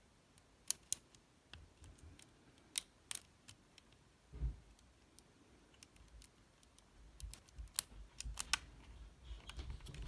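Lock pick and tension wrench working in the keyway of an OnGuard Beast padlock: small, sharp, irregular metallic clicks and scrapes, with a soft low bump about four and a half seconds in.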